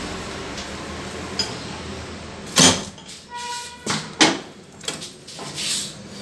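Metal barrel bolt on a door being worked and the door handled: a series of sharp metallic clacks starting about two and a half seconds in, with a brief squeak among them.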